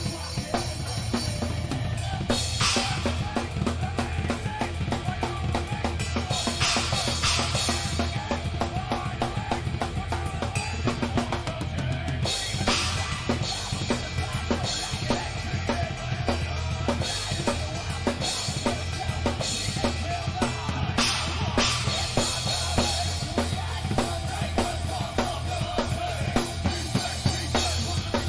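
A rock band playing live, with the drum kit close-miked and up front: a steady run of kick and snare strokes over a sustained bass line, and a crash cymbal splashing in every few seconds.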